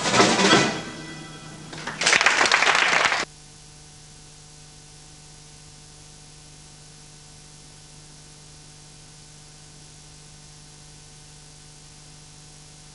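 A live band's song ends on its last drum kit strikes, followed about two seconds in by a short burst of audience applause that cuts off abruptly after about a second. Then only a steady faint hum with hiss remains.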